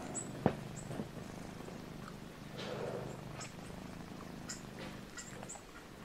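Domestic tabby cat purring steadily while dozing, a low continuous purr with a couple of faint soft clicks.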